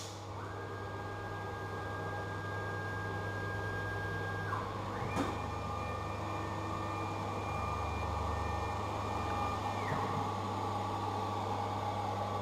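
CNC router's axis drive motors whining as the gantry carries the spindle back to the automatic tool changer: a steady whine for about four seconds, a click, then a higher whine for about five seconds, over a constant low machine hum.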